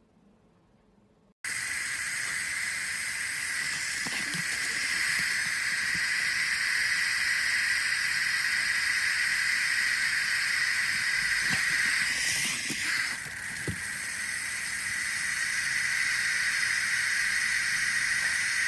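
Water spray hissing steadily close to the microphone. It starts suddenly about a second and a half in and dips briefly near the middle.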